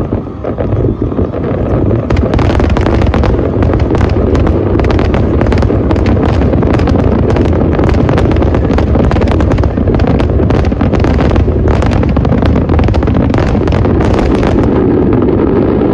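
Aerial fireworks going off in a rapid, continuous barrage: dense crackling bursts over a steady low rumble, starting about two seconds in and easing off near the end.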